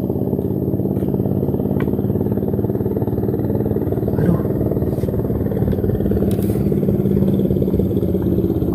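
An engine running steadily, an even low hum with a few faint clicks over it.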